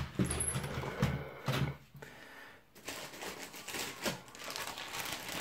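Loose plastic Lego pieces clicking and rattling against one another and the tabletop as they are handled and dropped in, a dense clatter in the first couple of seconds, then lighter scattered clicks.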